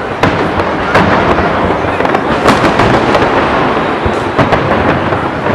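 Fireworks display going off: a dense run of bangs and crackling, several sharp reports a second over a continuous rumble.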